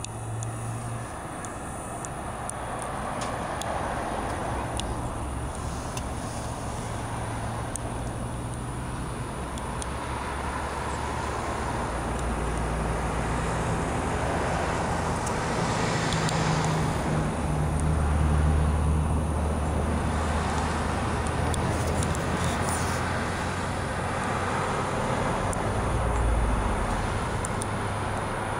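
Steady vehicle engine and road noise: a low engine hum that shifts in pitch over a noisy background, swelling a little around the middle and again near the end.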